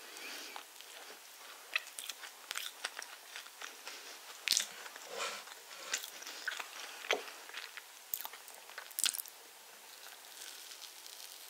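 Close-miked eating of iced spiced orange sponge cake: bites, chewing and wet mouth clicks, an irregular run of sharp clicks and smacks, the loudest about four and a half and nine seconds in.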